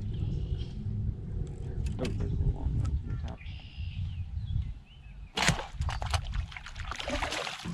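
Shot longnose gar splashing at the surface as it is hauled in on a bowfishing line: a sharp splash about five and a half seconds in, then a second or so of thrashing in the water. A low steady rumble runs underneath.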